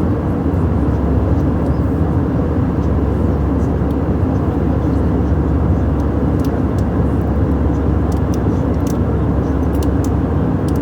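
Passenger airliner cabin noise: the steady low hum of the jet engines and airflow, unchanging throughout, with a few faint clicks.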